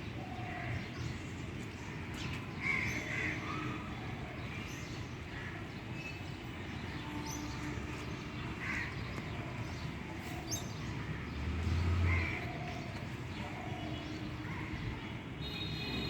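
Crows cawing now and then, with scattered short calls over a steady background noise. A brief low hum about three-quarters of the way through is the loudest moment.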